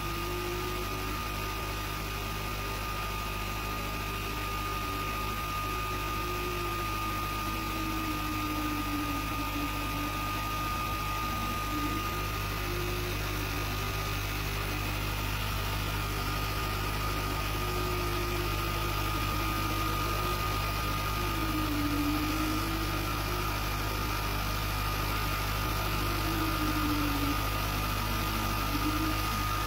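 Sculpfun S30 Ultra laser cutter running: a steady hum and a steady high whine, with the stepper motors' tone wandering up and down in pitch as the laser head traces the curves of the design.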